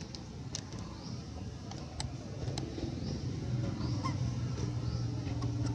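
Short, high, rising bird chirps recurring every second or so, over a low steady hum that grows louder about halfway through.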